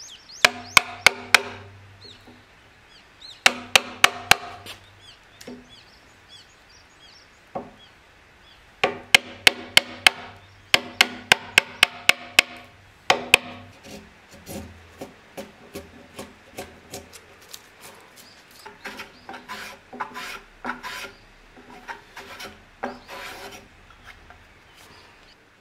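A hammer drives a chisel into a Japanese pine (matsu) beam. The sharp, ringing strikes come in quick runs of about four to six blows, and lighter, more scattered taps follow in the second half.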